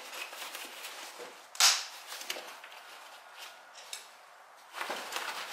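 Plastic side-release buckle on a nylon tool roll's strap clicking shut with one sharp snap about one and a half seconds in, amid rustling of nylon webbing and fabric as the strap is handled; a longer rustle near the end.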